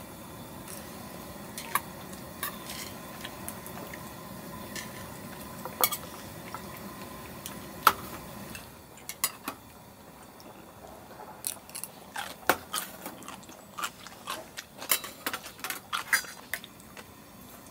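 Spoons and chopsticks clinking and tapping against dishes at a meal: scattered sharp clicks that come more often in the last several seconds. A steady low hum underneath stops about eight seconds in.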